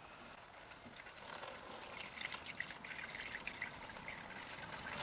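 Paint thinner trickling as it is poured through a funnel and coffee filter into a plastic container. It is faint, with small spattering ticks, and grows slightly from about a second in.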